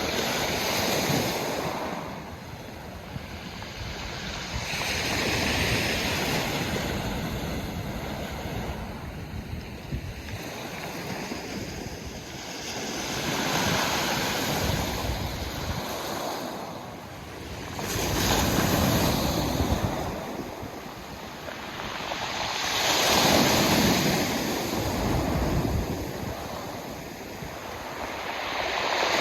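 Sea waves breaking and washing up a pebble beach, the surf swelling and fading every four to six seconds, with some wind noise on the microphone.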